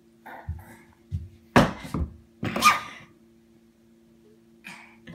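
Two loud, sharp vocal bursts from someone close by, about a second apart, between short bits of toddler babble, over a faint steady hum.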